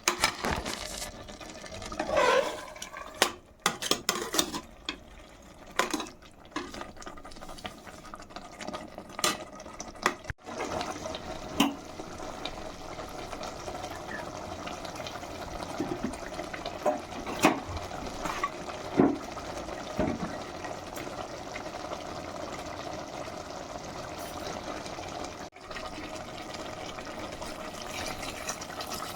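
Water and liquid sloshing in a cooking pot, with utensil knocks and clinks against the pot through the first ten seconds or so. After that comes a steady running-water or bubbling sound with a few scattered clinks.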